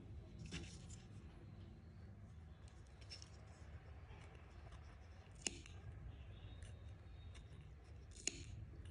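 Small spring-loaded yarn snips cutting crochet yarn: a few short, sharp snips, the clearest about halfway through and near the end.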